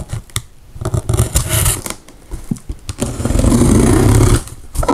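Box cutter slitting the packing tape along the seam of a cardboard box, the blade and tape scraping over the cardboard. There is a short stretch of scraping about a second in and a longer, louder one about three seconds in.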